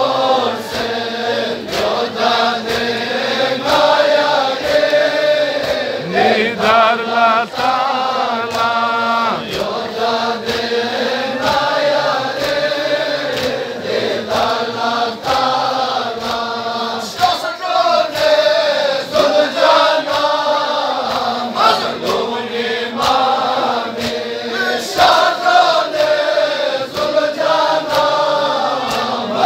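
Balti-language nauha (Shia lament) chanted by male voices in chorus, the reciter's melody carried by the congregation. Under it runs a steady beat of hands striking chests in matam.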